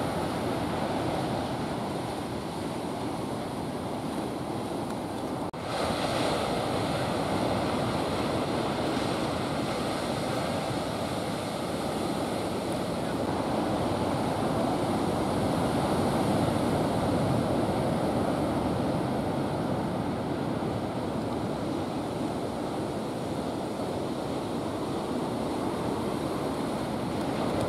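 Ocean surf breaking and washing on the shore, a steady rush of water noise with wind on the microphone. It drops out for a moment about five seconds in.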